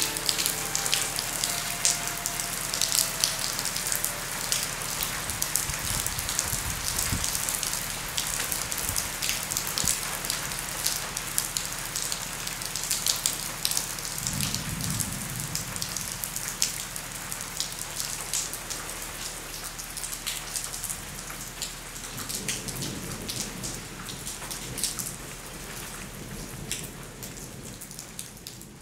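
Heavy rain falling on the ground: a dense, steady patter of drops. Two brief low rumbles come about halfway and again around three-quarters through, and the rain fades away at the end.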